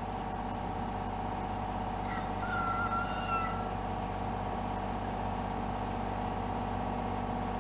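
Kubota mini excavator's diesel engine running steadily as it works. A brief high-pitched squeal rises and falls about two to three seconds in.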